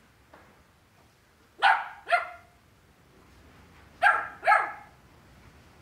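Airedale terrier puppy giving four short, high-pitched play barks in two quick pairs, about two and a half seconds apart.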